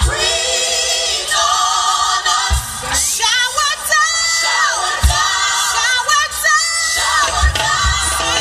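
Gospel song with sung vocals, vibrato on held notes, and a low bass hit about every two and a half seconds.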